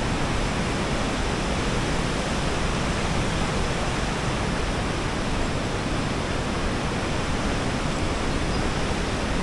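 Steady, even rushing noise with no breaks or distinct events.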